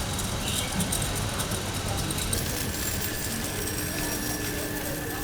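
Trolley with loose wheels rolling and rattling over a market floor, a run of fine clicks over a steady background din, easing after about two seconds.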